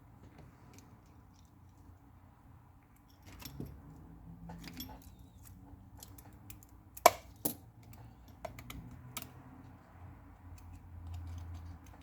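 Small repair tools working on an opened iPhone XS: scattered light clicks and taps of metal on the phone's parts as its tiny internal screws and bracket are handled. A sharp click about seven seconds in is the loudest.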